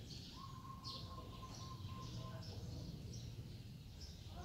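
Small birds chirping repeatedly in short falling notes over a steady low background rumble. A faint steady tone joins about half a second in and stops after nearly two seconds.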